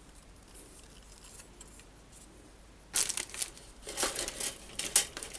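Plastic model-kit sprues being handled in a cardboard box: rustling and clattering that starts about three seconds in, with a sharp clack near the end.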